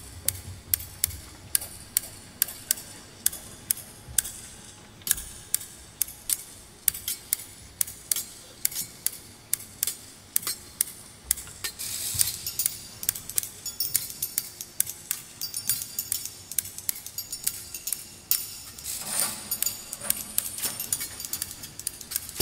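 Hair-thinning shears snipped close to a microphone as a solo percussion part, making crisp metallic clicks about twice a second. Brief hissing, rasping swishes come about halfway through and again near the end.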